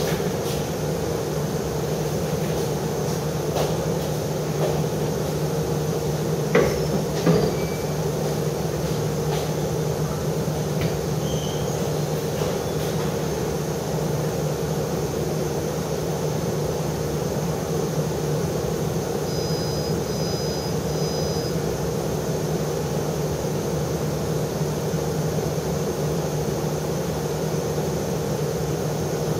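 Steady machine hum over even background noise, with a couple of brief knocks about seven seconds in and a faint, short, high-pitched beeping about two-thirds of the way through.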